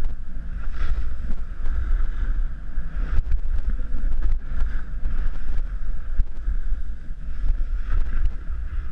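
Wind buffeting the camera's microphone during a fast ski descent: a loud, uneven low rumble, with the hiss of skis sliding and carving on packed snow rising and falling through the turns.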